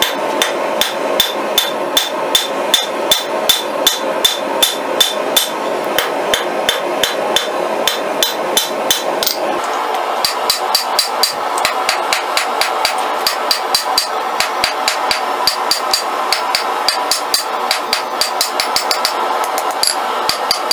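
Hand hammer striking a red-hot steel bolt head on an anvil, flattening it. Steady ringing blows, about two a second, quickening to about three a second near the halfway point.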